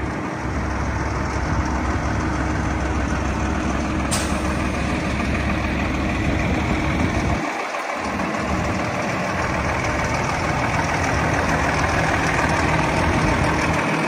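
A 2011 Peterbilt 348 garbage truck's engine idling steadily, with one brief click about four seconds in.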